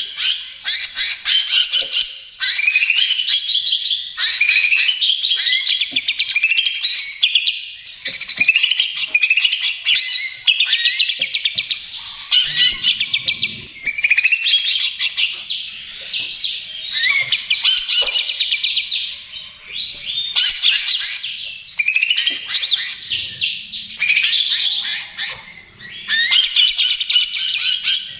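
Cucak ijo (green leafbird) singing hard with barely a pause: long, varied phrases of fast rattling trills and chirps, with quick rising notes.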